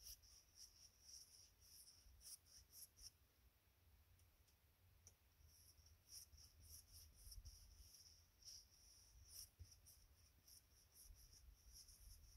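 Faint, scratchy strokes of an oil-paint brush on canvas, short and irregular, over a faint low rumble.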